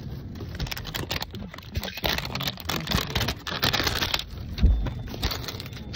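Handling noise from a plastic toy and its paper packaging: irregular rustling and clicking, busiest in the middle, with one heavy thump a little past four and a half seconds in.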